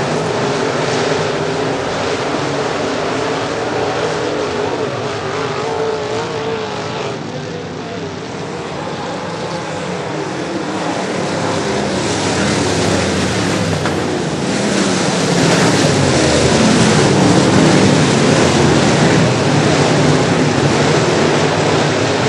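Dirt-track modified race cars' V8 engines running hard as the pack laps the track, a dense, continuous racket of several engines at once. It eases off about a third of the way in, then grows louder again as cars come close.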